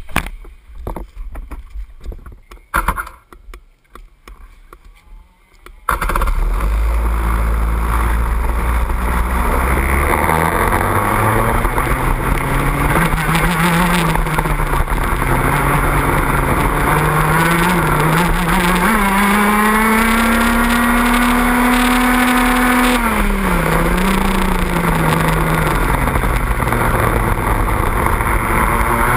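A two-stroke racing kart engine heard from onboard the kart. After a few seconds of knocks and rustling, it starts about six seconds in and runs loud. Its pitch rises and falls as the kart accelerates and slows for corners, climbing highest along a straight before dropping sharply under braking.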